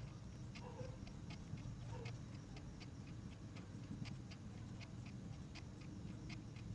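Whiteboard marker tapping and scratching short strokes onto a whiteboard while marking the divisions and numbers along graph axes: a quick, uneven run of faint clicks, about four a second.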